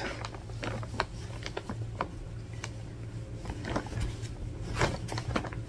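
Soft rustling and small taps of quilting fabric being unfolded and handled, over a steady low hum.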